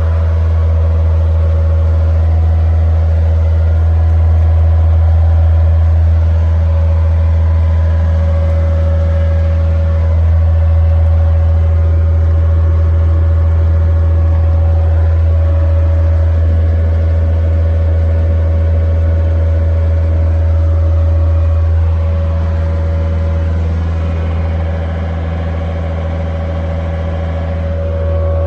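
Skid steer's diesel engine running steadily at a constant speed, with a strong low hum. The sound shifts a little about two-thirds of the way through, then eases slightly.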